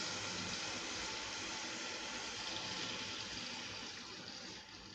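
Steady wet hiss of thick yogurt marinade being poured from a bowl into a steel pot onto a chicken sitting in hot oil, fading out near the end.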